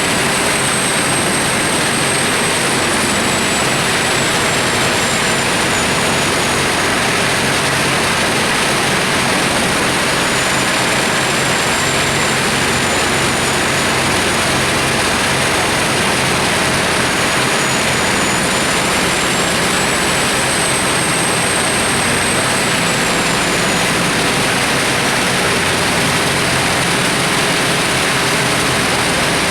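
Large mobile drum wood chipper running steadily and loudly, a dense unbroken machine noise with a faint high whine that slowly wavers in pitch.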